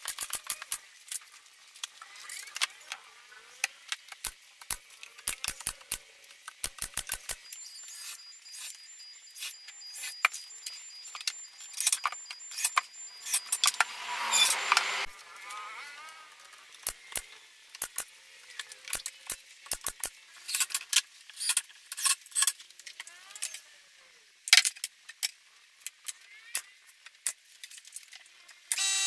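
Pneumatic nail gun firing nails into plywood cabinet panels: many sharp shots, at times in quick runs of several a second, with pauses between. About halfway there is a louder rushing noise lasting a couple of seconds.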